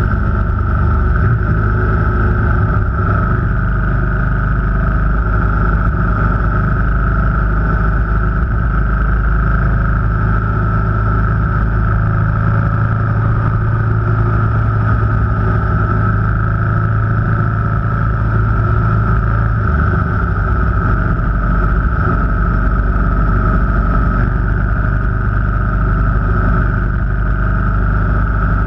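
Car engine and road noise from a vehicle driving at a fairly steady speed, a continuous low drone whose pitch shifts slightly a couple of times.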